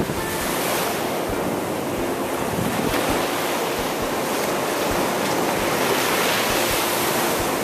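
Ocean surf breaking and washing up a sandy shore, a steady rush, with light wind buffeting the microphone in low thumps.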